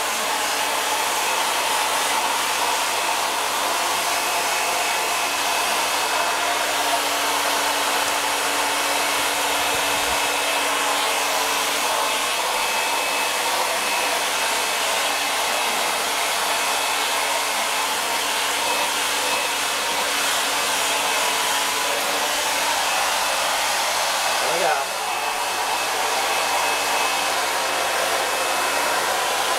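Hand-held hair dryer running steadily, a constant rush of air with a faint steady whine, blowing a small dog's wet coat dry.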